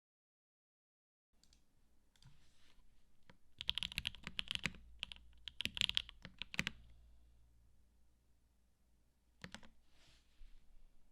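Typing on a custom mechanical keyboard with lubed and filmed Alpaca v2 linear switches, a polycarbonate plate and Cherry PBT keycaps. After a silent second there are clusters of quick keystrokes, loudest in the middle, then a few scattered presses and a short burst near the end.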